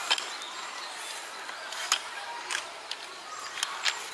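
About five short, sharp clicks at irregular intervals over faint background chatter of children's voices.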